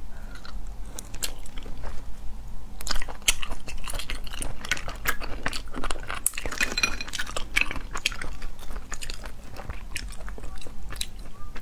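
Close-up eating sounds of spicy sea snails: sucking the meat from the shells and chewing, with sharp clicks and crackles as the shells knock against each other and the plate, busiest in the middle stretch.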